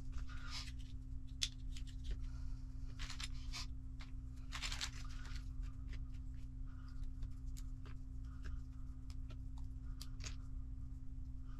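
A clear plastic parts bag crinkling as it is handled, in several rustling bursts over the first five seconds, then many short clicks of small hard plastic kit parts picked up and set down on a work mat. A steady low hum runs underneath.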